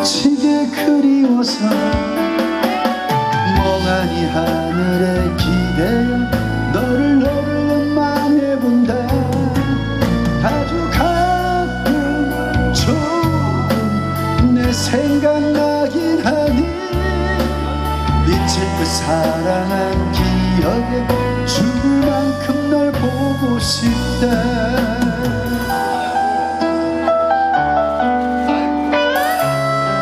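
Man singing a ballad into a microphone over a recorded backing track with bass and drums, amplified through a PA. The bass and drums drop out near the end as the song closes.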